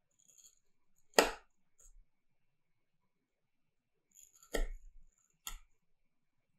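Kitchen knife blade cutting through a layer of onion and pressing onto a white tile: short, sharp cutting taps. The loudest comes about a second in, and two more follow near the end.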